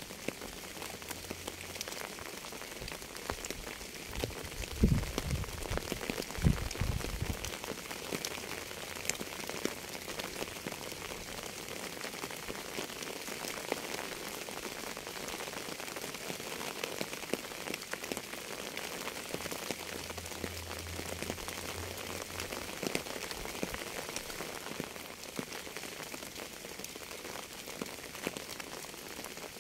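Steady rain falling on a surface, an even hiss dotted with many separate drop ticks. A couple of louder low thumps come about five and six and a half seconds in.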